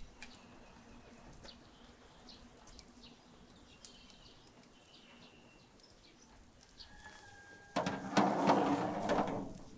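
Faint outdoor ambience with a few short bird chirps. Near the end comes a loud scraping rush with clicks, lasting under two seconds, as a large round metal grill grate is moved across a steel fire drum.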